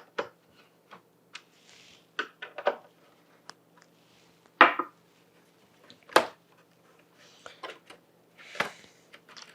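Scattered clicks, knocks and short rubbing sounds from handling and fitting the parts of a wooden computer case and its screws, with two louder knocks about halfway through.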